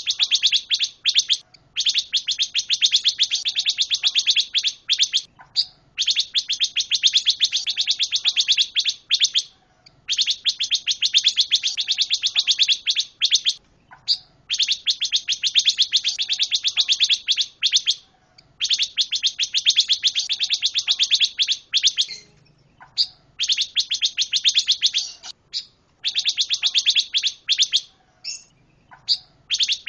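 A pancawarna songbird singing continuously in long, rapid chattering trills, each phrase lasting a few seconds, with short breaks between them.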